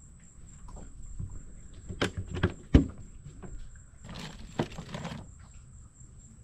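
Boat deck cooler hatch being opened, with a few sharp plastic knocks and clunks from the lid. Then a hand rummages through ice water and plastic-bagged items inside, with a rustle and a knock as a plastic food container is pulled out.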